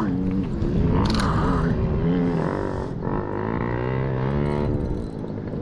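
A motor engine running steadily, its pitch slowly wavering up and down.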